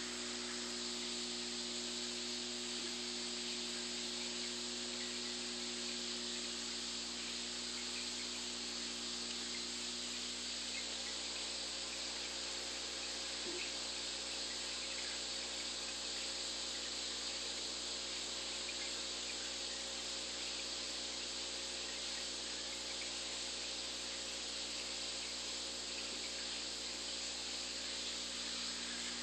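Steady hiss of aquarium bubbles rising from an air stone, with a faint low hum underneath from the tank's equipment.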